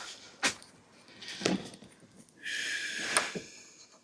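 Metal tool handling: a couple of sharp clinks, then a short metallic scraping ring lasting under a second, as a crank puller is brought to the bicycle's crank arm.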